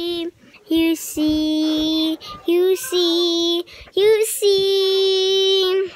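A young girl singing unaccompanied, a slow melody of long held notes with short breaths between them, the last note held for about a second and a half.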